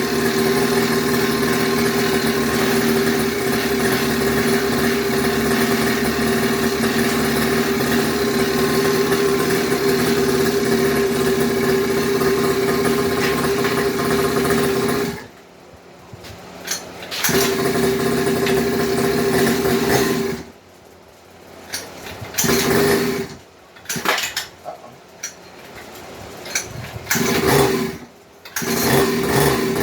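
Newly installed 50cc two-stroke engine of a Coolster mini bike running steadily, then cutting out abruptly about halfway through. It is restarted in several short bursts that die away again, before running once more near the end.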